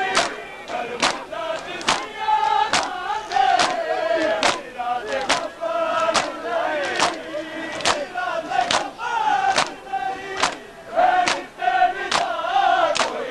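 A crowd of mourners beating their chests in unison (matam): sharp hand-on-chest slaps a little faster than once a second, over many men's voices chanting in time with the beat.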